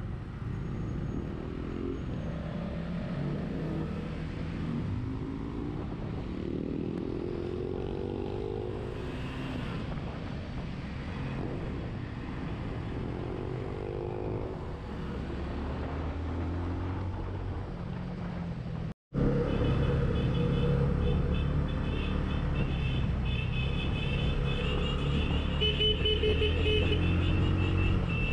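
Benelli TNT 25 single-cylinder motorcycle engine running under way, its pitch rising again and again as it accelerates through the gears. About two-thirds in the sound breaks off for an instant; after that the engine runs louder and steadier, with a high whine on top.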